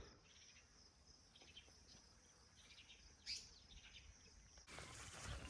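Near silence: faint outdoor ambience with insects and birds chirping, and one brief chirp a little over three seconds in. Near the end a louder, even rustling noise sets in.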